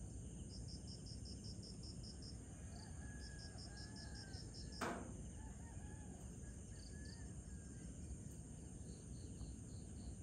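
Night crickets chirping in regular runs, about six chirps a second with short gaps, over a steady low background noise. A single sharp click sounds about halfway through.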